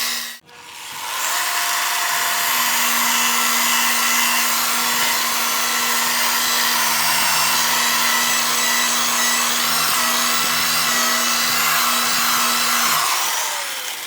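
Electric glass polisher running against window glass during the pre-polish that grinds out weld-spatter burns and deep scratches. It cuts out about half a second in, spins back up, runs steadily with a constant hum, and winds down near the end.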